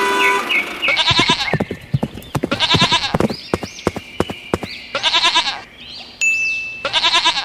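Goat bleating four times, about two seconds apart, each bleat under a second and wavering, with quick tapping clicks between the bleats. A short steady whistle tone comes shortly before the last bleat.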